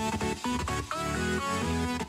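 Background music with a bass line under a melody of short, changing notes.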